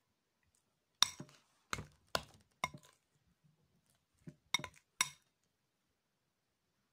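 Short, sharp clinks of hard objects knocked together, each with a brief ring: a run of several, a short pause, then a few more.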